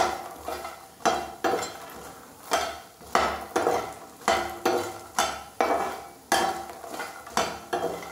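A perforated metal skimmer scrapes and knocks against a wok-style pan as makhana (fox nuts) are stirred and roasted in a little ghee, about two strokes a second.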